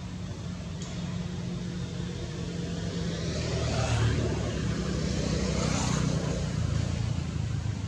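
A distant engine hum that swells louder about halfway through and eases off near the end, like a motor passing by.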